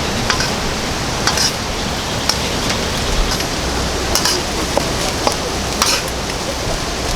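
Heavy rain falling steadily, with scattered sharper drops and taps standing out from the constant hiss.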